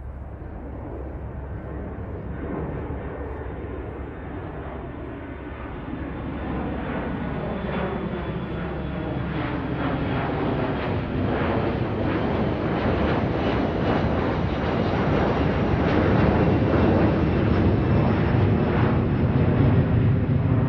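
Airplane approaching overhead: a continuous rumble that grows steadily louder and brighter, with slowly sweeping, shifting tones in it.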